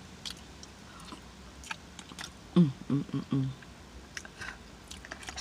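Close-miked mouth sounds of someone eating mashed potatoes: wet smacking and chewing clicks at irregular intervals. Three short closed-mouth hums of enjoyment come about two and a half seconds in.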